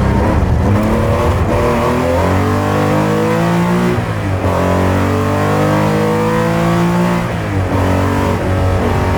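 Porsche 911 (930) air-cooled flat-six accelerating hard through the gears, heard from inside the cabin: the revs climb steadily, then drop sharply at upshifts about four and seven seconds in.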